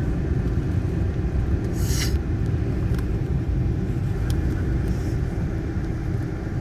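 Steady low rumble in a Korean Air airliner's cabin on the ground before takeoff, from the engines and air system. A short hiss comes about two seconds in, and there are a few faint clicks.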